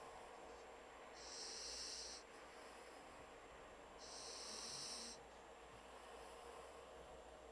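Pocket bulldog puppy snoring in deep sleep: two soft, breathy snores, each about a second long and about three seconds apart.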